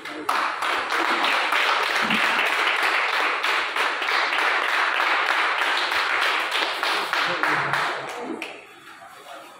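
Crowd applauding, starting suddenly and dying away after about eight seconds.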